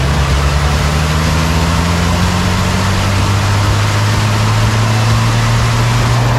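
Racing truck's diesel engine pulling under load, its drone slowly rising in pitch as the truck accelerates, over heavy wind and road rush on a front-mounted camera.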